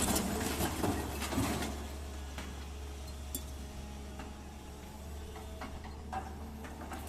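Excavator engine running with a steady low hum, under scattered clicks and knocks that come thickest in the first two seconds.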